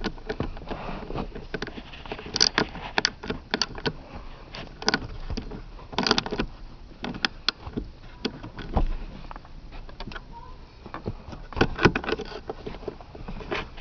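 Socket wrench with an extension tightening the seat belt buckle's 14 mm anchor bolt: irregular metallic clicks and clinks in short runs.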